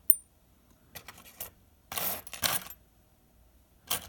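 Steel lock picks and a Master Lock padlock clinking and scraping in hand. A sharp metallic click with a brief ring comes at the start, then a few short rattling bursts about a second apart, as picks are swapped for single-pin picking.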